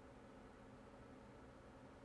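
Near silence: faint steady hiss of the recording's room tone.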